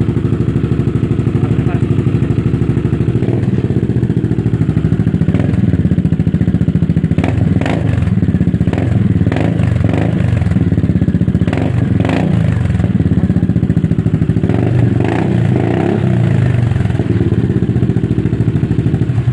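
Kymco Xciting S400 scooter's engine running through an aftermarket Akrapovič muffler with a bassy exhaust note, idling and blipped up in several short revs in the middle of the stretch.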